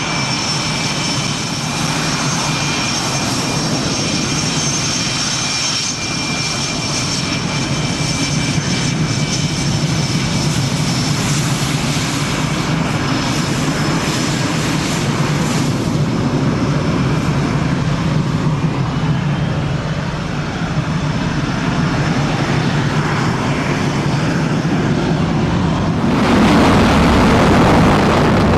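Twin General Electric F404 turbofans of Swiss F/A-18 Hornet fighters taxiing: a steady jet rumble with high whistling turbine tones over it. About 26 s in, the sound cuts to a louder, rougher jet noise.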